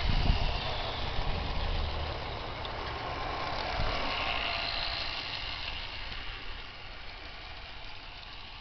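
O gauge model Blue Pullman diesel unit running on garden track, a steady rumble of wheels on rail and motor. It is loudest at first and slowly fades as the train draws away.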